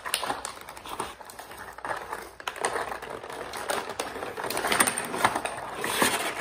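Cardboard toy packaging being torn open and crumpled by hand, an irregular run of rips and crackles that grows busier about four seconds in.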